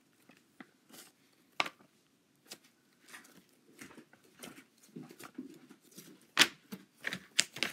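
Thick white cake batter slime, stiffened with baby powder, squeezed and kneaded by hand, giving irregular squelching clicks and pops. The sharpest pop comes a little past six seconds in, with several more near the end.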